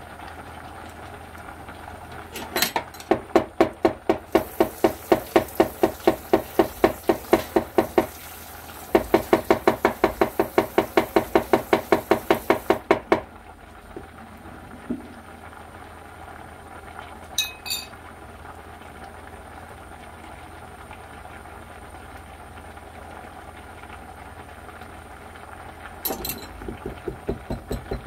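Rapid, even knife chopping on a cutting board, about four strokes a second, for roughly ten seconds with a brief pause. It stops, then starts again near the end. Under it runs the steady bubbling of kimchi jjigae at a full boil in a stainless steel pot.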